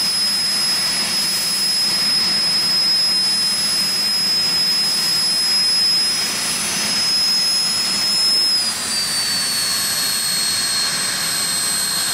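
Cessna A-37B Dragonfly's twin General Electric J85 turbojets running at idle on the ground: a loud, steady rush with a high-pitched whine on top. About two-thirds of the way through, the whine slides a little lower in pitch and holds there.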